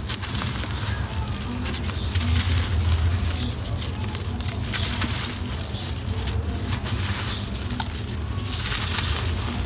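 A dry, gritty sand-and-gravel block crumbling in bare hands: a steady crackling grind with many small clicks as grit and pebbles break off and pour down, and gritty hands rub together.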